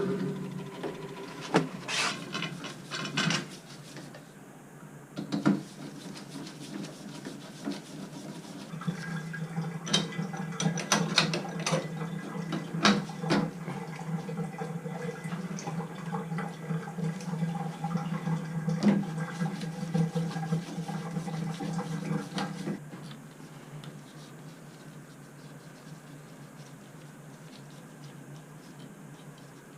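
Water running with a steady hum, with scattered knocks and clicks; the hum cuts off about 23 seconds in.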